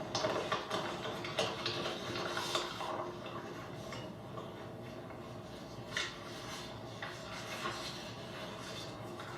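Paper rustling and small handling clicks close to a microphone, scattered and irregular and busiest in the first few seconds, over a low steady room hum.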